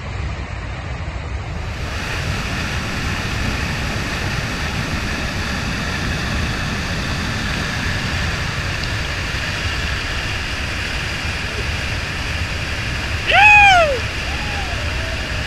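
Steady rushing of a large whitewater rapid at high flow from a dam release. About 13 seconds in, a loud, short whooping shout that rises and falls in pitch, followed by a softer second call.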